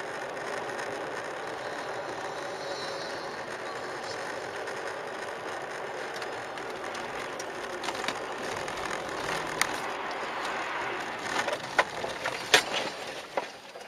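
Steady road and wind noise inside a car driving through blowing snow. From about eight seconds in come scattered sharp clicks and ticks as snow and ice thrown up by a passing truck strike the windshield, the loudest cluster near the end.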